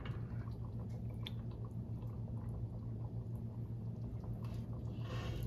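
Braised oxtail and gravy being spooned onto a plate: soft wet squishes and faint clicks of the spoon, with a short swish near the end, over a steady low hum.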